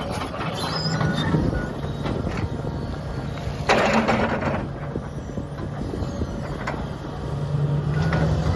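Heavy construction machinery running steadily, with scattered creaks and clanks and a short burst of hiss about four seconds in.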